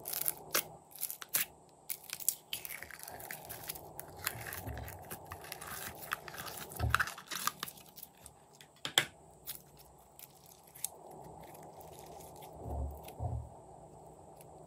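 Sticky green glitter slime being peeled from its plastic container and pulled and stretched by hand, giving many sharp crackles and clicks, thickest in the first half, with a few soft low thumps.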